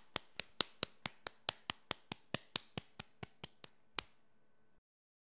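Rapid, evenly spaced clicks, about four or five a second, ending with one louder click about four seconds in.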